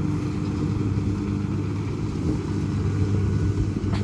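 Kubota DC60 combine harvester's diesel engine running steadily under load while it harvests rice, a constant low drone.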